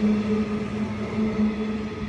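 Queensland Rail electric multiple-unit train pulling out of the station: a steady electric hum from its drive with fainter higher tones over it, and the wheels rattling over the rails.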